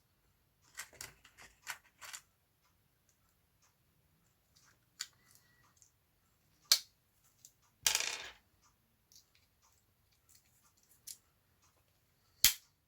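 Small plastic and metal clicks and taps as a Swiss Army knife's toothpick and tweezers are pulled out and slid back into the handle. A few quick clicks come first, then single sharp clicks, the loudest near the middle and near the end, with a brief rattle about eight seconds in.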